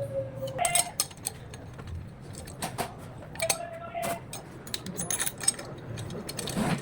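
Scattered metallic clicks and clinks of hand tools and engine parts being handled, some with a brief ring, at irregular intervals.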